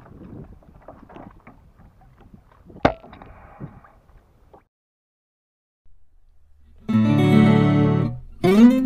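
Faint wind noise on the microphone from a kayak on the water, with one sharp click about three seconds in. After a brief silence, loud strummed acoustic guitar music starts near the end.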